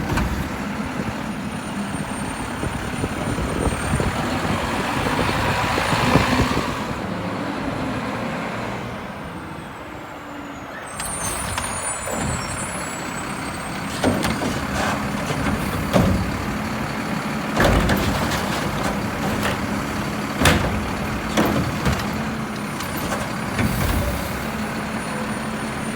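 Garbage truck running, with a hiss of air around six seconds in, then a series of sharp knocks and clatters through the second half.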